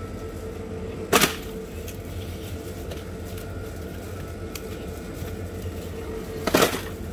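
Two brief knocks and rustles of instant ramen packages being handled, about a second in and again near the end, over a steady hum.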